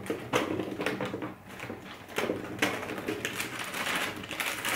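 Foam Nerf Rival balls pouring from a plastic bag into the clear plastic hopper of a Nerf Rival Nemesis blaster. They rattle and click irregularly against each other and the plastic, with a few louder clatters as handfuls drop in.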